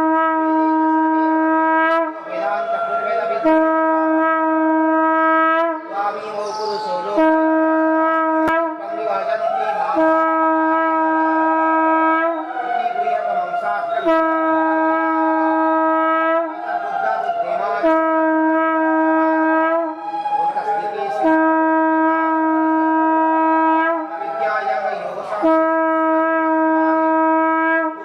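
Conch shells blown in repeated long blasts of about two seconds, each on the same steady pitch, with swooping rising-and-falling notes between the blasts, sounded for the temple's morning door-opening and aarti.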